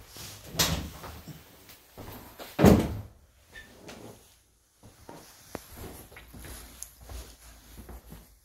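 A door being handled, opened and shut, with two thuds about two seconds apart, the second the louder, then fainter clicks.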